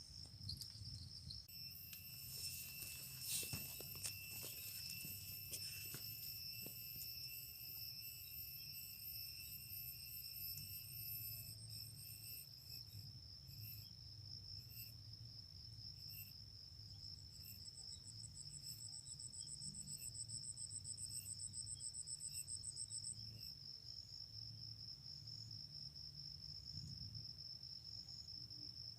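Insects trilling: one steady, high, finely pulsing trill throughout, with several other high trills over it in the first half and another fast pulsing trill joining near the middle. A few light clicks come about three to five seconds in.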